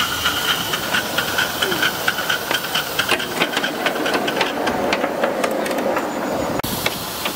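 5-inch gauge Simplex 0-6-0 live-steam locomotive moving off under steam: a steady hiss of steam with a high singing tone over the first few seconds, and a rapid train of short sharp beats that quickens as it gets going.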